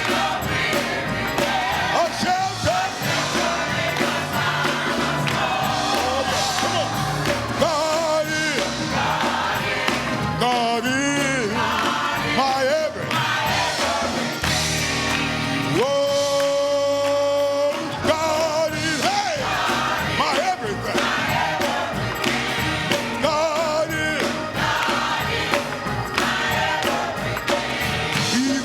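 Gospel music: a live church band with singers and choir, one long held vocal note partway through.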